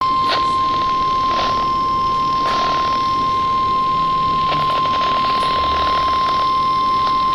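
Weather radio's 1050 Hz warning alarm tone: one continuous steady beep. It signals that a severe weather warning message follows, and it comes through heavy radio static with crackling bursts.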